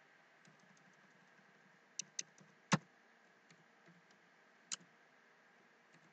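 Computer keyboard keystrokes, a few separate sharp clicks at irregular intervals, the loudest a little under three seconds in, over a faint steady hiss.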